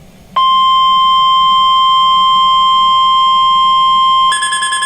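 Weather radio alert test: the steady 1050 Hz warning alarm tone starts abruptly about half a second in and holds loud and even. Near the end a second, higher tone joins it, pulsing rapidly like an alarm-clock beep.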